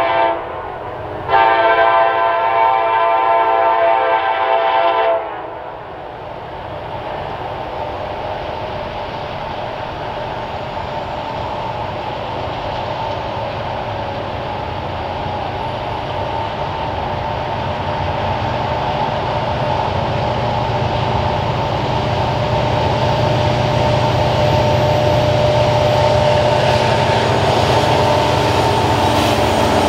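Diesel freight locomotive horn sounding a multi-note chord: one blast ends just after the start and a long blast runs from about one to five seconds in. After it, the rumble of the train's diesel engines and wheels on the rails grows steadily louder as the locomotives approach and come alongside near the end.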